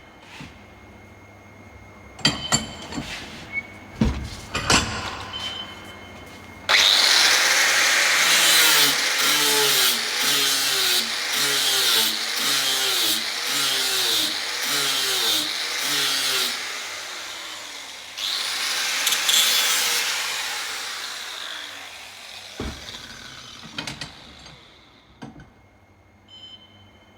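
Electric grinder grinding down fresh welds on a steel crevice scraper, in a long spell of about ten seconds and a shorter one of about three. Its pitch dips about once a second as the tool is pressed on and lifted. A few knocks and clicks come before it starts.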